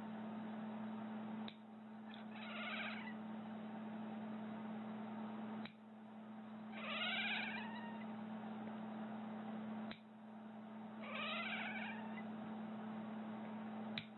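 Sleeping cat snoring with a squeaky, whistling note that rises and falls on each breath, three times about four seconds apart.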